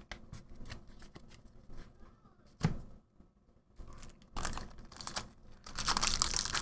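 Trading cards being handled and set down on a playmat with small clicks and taps, then from about four and a half seconds in the foil wrapper of a Magic: The Gathering Double Masters booster pack crinkling and tearing as it is opened.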